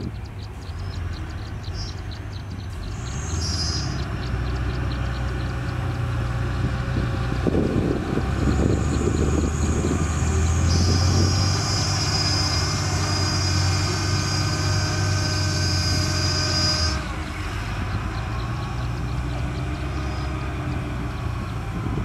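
Dump truck's diesel engine running as the raised bed tips out a load of soil. About a third of the way in the engine grows louder and a high whine joins it. About three-quarters through it drops back to a steadier run.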